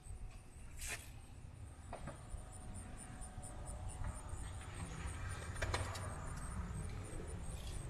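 Outdoor ambience: a steady low rumble with a few scattered clicks and scuffs, and a faint high ticking repeated several times a second.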